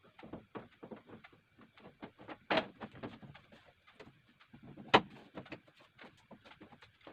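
Irregular light clicks and knocks of hard objects being handled, with two louder knocks, one about two and a half seconds in and one about five seconds in.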